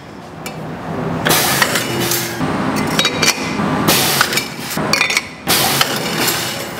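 CNC trimming machine's rotary cutting disc cutting the top rim off a stainless steel bottle neck: noisy bursts of metal scraping and clinking, the first about a second in and more near the end.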